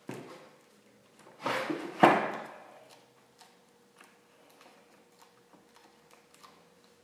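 A few knocks and bumps on a wooden studio easel and canvas as they are handled, the loudest about two seconds in, followed by small ticks and a faint steady tone.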